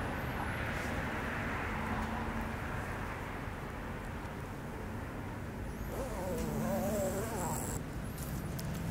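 Steady low rumble of distant road traffic. About six seconds in, a wavering tone and a few high chirps join it for a couple of seconds.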